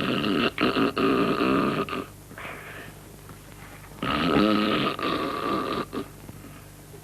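Loud snoring: two long snores about four seconds apart, each lasting about two seconds, with a fainter breath between them.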